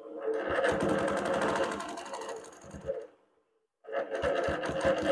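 Innova Classic 22-inch longarm quilting machine stitching free-motion feathers, the needle running in a fast, even rhythm. It stops a little after three seconds in and starts stitching again about half a second later.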